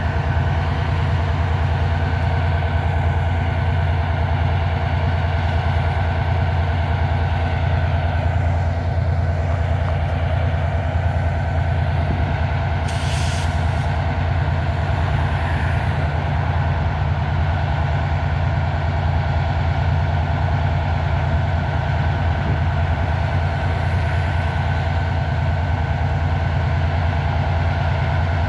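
EMD MP15 diesel switcher locomotive idling steadily with a deep, even hum while building up air pressure. A short hiss of air comes about thirteen seconds in.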